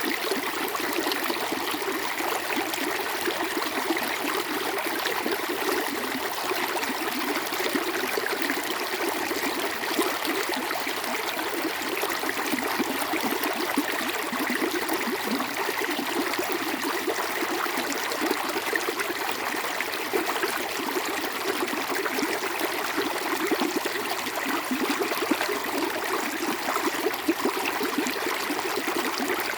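Water flowing steadily in a stream, a continuous rushing and bubbling that neither builds nor fades.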